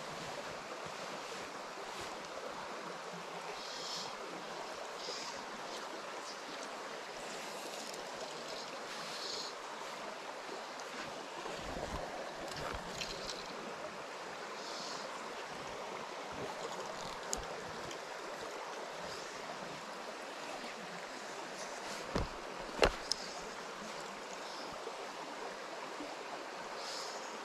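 Shallow rocky stream running over stones, a steady rush of water. A few sharp clicks stand out, the loudest two close together about two-thirds of the way through.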